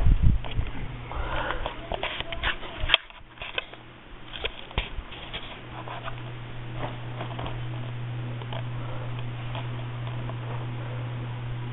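Hampton Bay Southwind five-blade ceiling fan running on high speed with a steady low hum. A handful of clicks and knocks come in the first few seconds.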